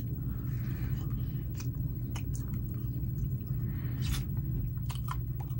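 A man chewing and biting into a baked chicken wing held close to the microphone, with sharp mouth clicks scattered through, over a steady low hum.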